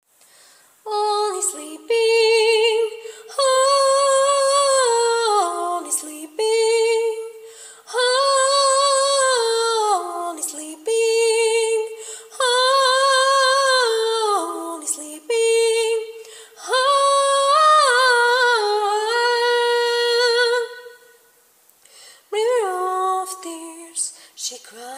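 A woman singing solo a cappella, with no accompaniment: slow phrases of held notes with vibrato, each phrase sliding down in pitch at its end. A short pause comes near the end before the next phrase begins.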